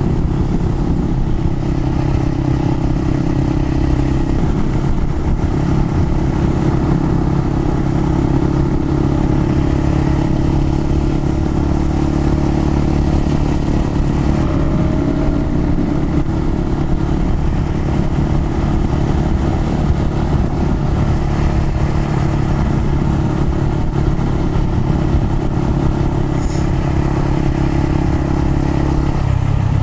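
Honda Monkey 125's single-cylinder engine, fitted with a tuning engine kit, running steadily as the bike cruises. The engine note changes near the end.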